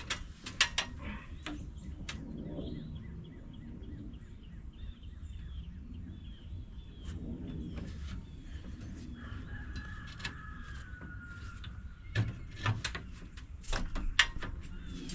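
A bird chirps a run of short repeated calls over a low steady outdoor rumble. Sharp clicks and knocks come about a second in and again several times near the end.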